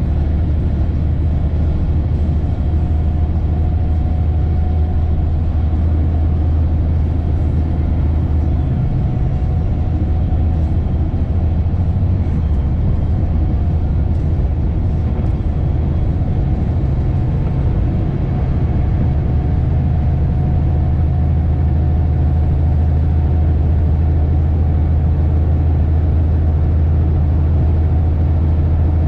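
Heavy truck's diesel engine running steadily under load, a loud low drone heard from inside the cab. The tone changes briefly about nine seconds in, and the sound dips for a moment a little past halfway.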